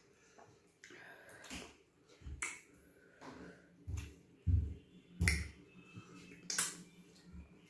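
Close-up mouth sounds of someone eating soup and starch: a series of about half a dozen sharp, wet lip smacks and clicks, with soft low thumps between them.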